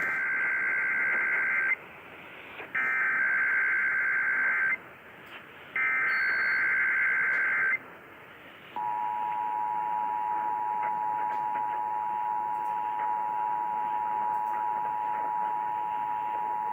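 Emergency Alert System test signal. It opens with three bursts of SAME digital header data, each a buzzy, chirping data screech about two seconds long with a second's pause between them. About nine seconds in, the EAS attention signal starts: a steady, harsh two-tone alert sound.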